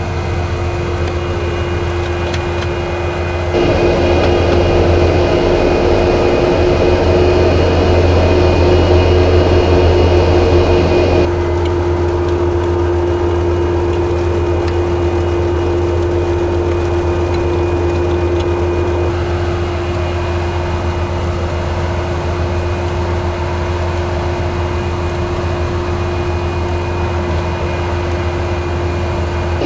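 Bobcat T190 compact track loader's diesel engine running steadily under load while its soil conditioner attachment churns through turf and dirt. The sound steps up louder about three and a half seconds in and drops back a little around eleven seconds.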